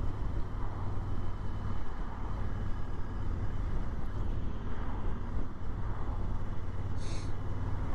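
Honda Africa Twin motorcycle engine running steadily on the road, with a low hum and rushing wind and road noise over the microphone. A brief high-pitched sound comes about seven seconds in.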